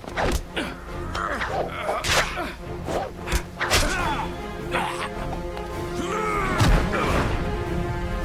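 Fight sound effects from an animated film: a quick run of hits and thuds with swishes of blows, over dramatic orchestral music. The hits are densest in the first half; later the music's held notes come to the fore.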